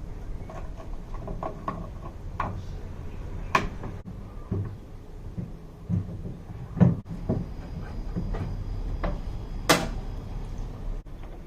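Scattered clicks and knocks of objects being handled. The sharpest clacks come about three and a half and ten seconds in, with a dull thump near seven seconds.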